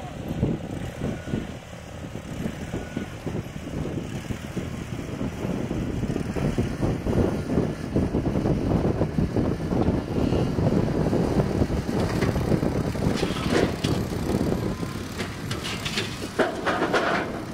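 Skid-steer loader engine running as it tows a pickup truck by cable off a steel recovery rig, with a rough rumble that builds through the middle. A few sharp clanks near the end as the truck comes down off the rig onto the ice.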